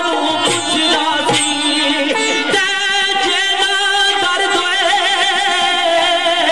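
Music: a melodic line over a steady accompaniment, with a long held note that wavers in pitch about five seconds in.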